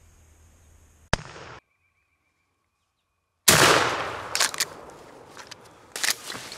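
Pump-action shotgun fired: a sharp blast about a second in that is cut off short, then after a stretch of dead silence a louder shotgun blast with a fading echo, followed by scattered crackles and thumps.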